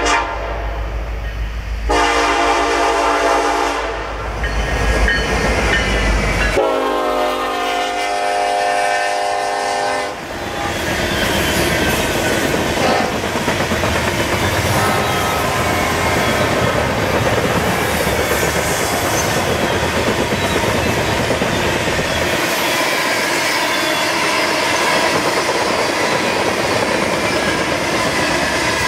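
BNSF diesel freight locomotive sounding its air horn in several blasts as it approaches, over the engine's low rumble. About ten seconds in, the horn stops and a fast train of loaded coal cars rolls past, its wheels clattering steadily on the rails.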